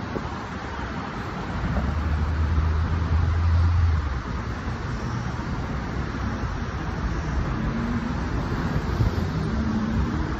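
Road traffic noise from passing cars, with one vehicle's low engine hum swelling loudest about two to four seconds in.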